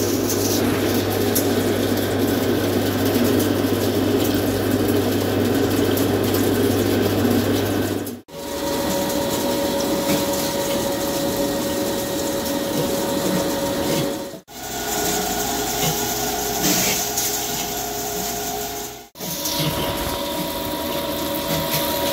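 CNC vertical turning lathe facing a large forged gear blank: the rotating table and a carbide insert cutting the metal give a steady machining hum and whine as chips come off. The sound breaks off sharply three times and comes back each time with a different steady pitch.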